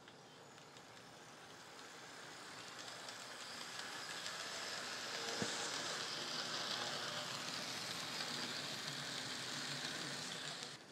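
N scale model train of silver passenger cars running along the track: a rushing hiss of small wheels on rail and motor that builds over the first five seconds, holds steady, then cuts off suddenly near the end.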